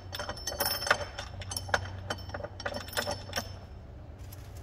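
Small metal hardware clinking and clicking by hand: nuts, washers and bolts being fitted on the threaded rods of a lithium cell bank's steel frame, in irregular clicks that thin out after about three and a half seconds, over a steady low hum.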